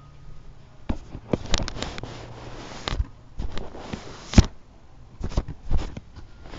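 Handling noise from a phone being picked up and fingered close to its microphone: irregular rustling, rubbing and clicking, with one sharp knock a little past the middle.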